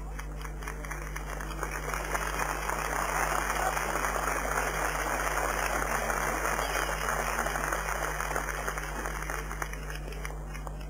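Crowd of spectators applauding. The clapping swells over the first few seconds and dies away near the end.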